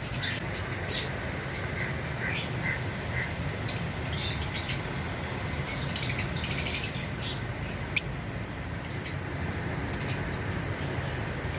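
A pair of green Fischer's lovebirds chirping: short, high calls scattered throughout, coming thicker a little past the middle, over a steady low hum. A single sharp click about two-thirds of the way through.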